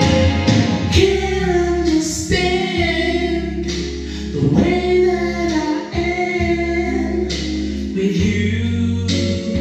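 A man singing into a handheld microphone, his voice sliding between held notes, over recorded backing music with sustained keyboard chords, both amplified through speakers.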